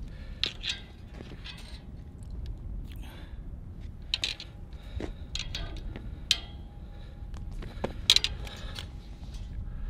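Scattered light clicks, scrapes and rattles of fishing tackle and a freshly caught fish being handled, over a low steady rumble.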